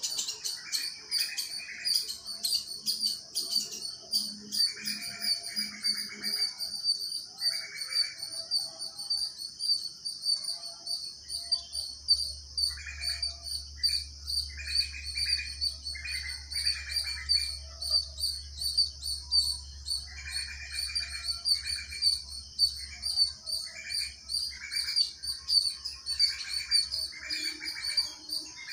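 Birds chirping in short clusters, over a steady, high, rapidly pulsing trill. A faint low rumble comes in through the middle.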